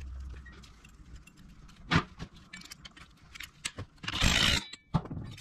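Loose metal parts and tools clicking and clinking, then, about four seconds in, a DeWalt cordless impact driver runs for half a second, driving down the clutch centre nut.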